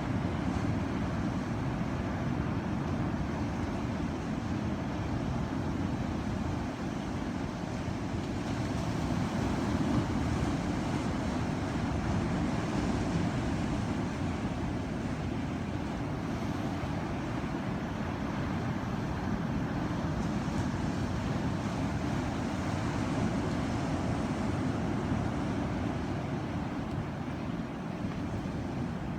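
Ocean waves: a steady, deep rushing of surf that swells gently in loudness now and then.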